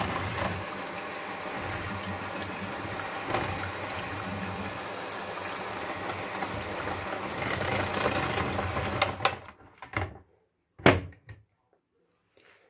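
Electric hand mixer running steadily, its beaters whisking eggs, milk and sugar in a plastic bowl, then stopping about nine seconds in. A few knocks follow; the loudest is a sharp knock about a second later.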